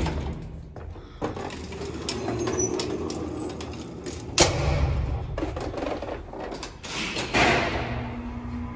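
The brass collapsible scissor gate of an old Otis hydraulic freight elevator being pulled shut by hand: knocks and a sharp clack about four and a half seconds in, then a rattling slide of the gate's metal lattice near the end. A steady low hum starts just after, as the elevator begins to run.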